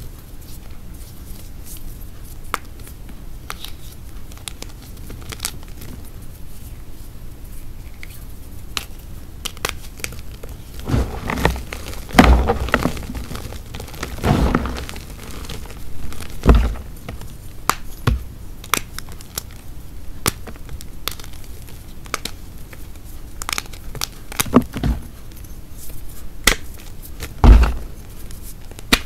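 Dried gym chalk hearts (Ader chalk) being crushed and crumbled: a steady run of sharp dry crackles, with a series of louder crunches from about eleven seconds in and two more near the end.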